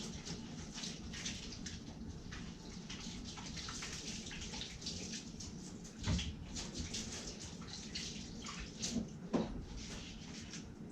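Water from a tap running and splashing as something is rinsed under it, with many small splashes and clicks and a couple of louder knocks about halfway through and near the end.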